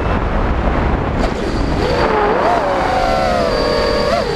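5-inch FPV quadcopter's brushless motors heard from the onboard camera: a rough, noisy rumble with the throttle low during a flip, then about two seconds in the motors' whine returns as several close tones rising and falling in pitch with the throttle, with quick throttle blips near the end.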